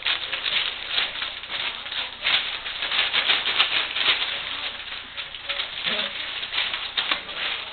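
English Springer Spaniel puppies feeding together: a dense, continuous crackling clatter of many small clicks and rattles.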